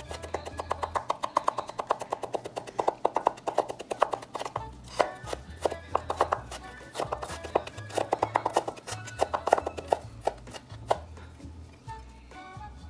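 Kitchen knife chopping garlic and ginger on a wooden cutting board: fast runs of sharp knife strokes, several a second, with short pauses between runs, stopping shortly before the end.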